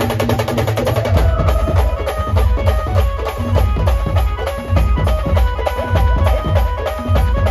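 Brass band music played loud through a truck-mounted speaker stack: a keyboard melody over fast drumming and heavy bass. The beat gets heavier about a second in.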